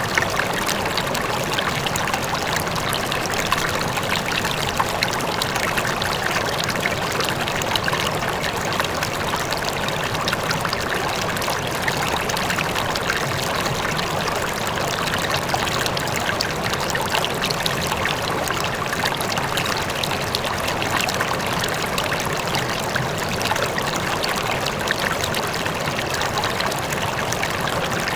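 River water flowing: a steady rush of babbling, trickling water.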